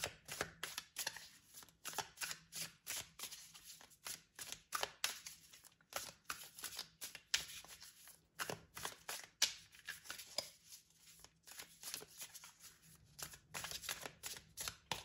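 A deck of tarot cards being shuffled by hand: a steady stream of quick, uneven card clicks and slaps, several a second.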